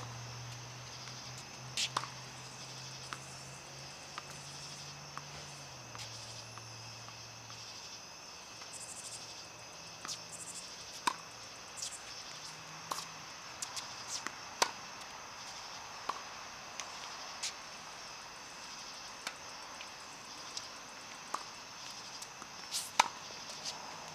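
Tennis balls being struck and bouncing: sharp, irregular knocks every second or two, over a steady high chirring of insects, with a low steady hum for the first third.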